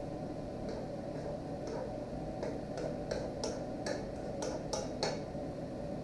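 Cooking spoon clicking and scraping against a frying pan while stirring rice and vegetables: about a dozen light, irregular taps, over a steady low hum.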